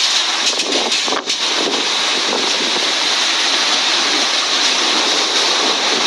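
Storm-force wind and rough surf: a loud, steady rushing, with a brief lull about a second in.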